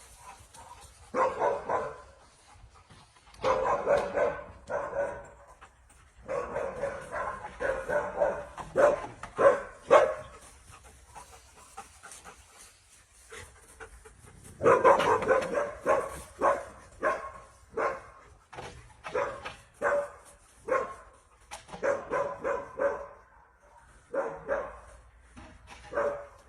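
Alaskan malamute barking and whining in a string of short pitched calls. It comes in several longer runs, then in many brief separate calls with short pauses between them.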